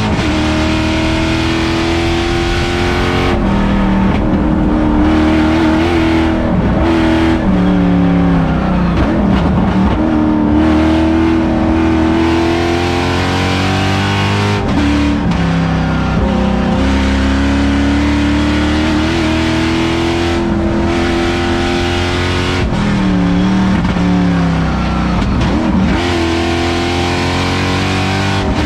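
GM LS3 V8 in a Mazda Miata race car at full lap pace, heard from inside the cockpit: the engine pulls hard with its pitch climbing, then falls away sharply about three times as it lifts and downshifts for corners, with unsteady throttle through the turns in between.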